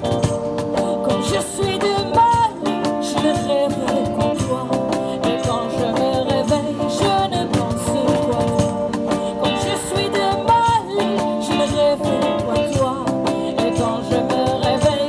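Live band music: acoustic and electric guitars over a steady cajón beat.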